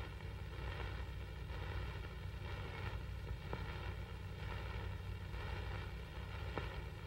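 Steady low hum and hiss of an old film soundtrack, with two faint clicks, one about halfway through and one near the end.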